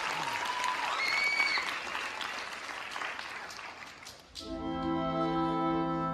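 Audience applauding, with a couple of short whistles about a second in. The clapping dies away, and about four and a half seconds in a held musical chord of several steady notes begins.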